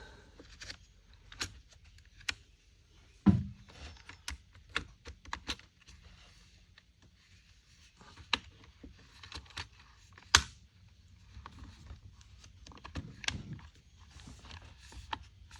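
Irregular light clicks and taps of small plastic parts being handled and fitted into an Echo CS-355T chainsaw's top handle during reassembly, with two sharper knocks, one about three seconds in and one about ten seconds in.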